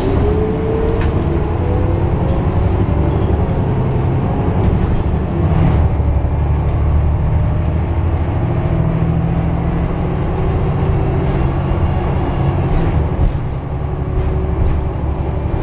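Gillig transit bus under way: a steady low engine and road rumble, with a faint rising whine at the start and a few light rattles.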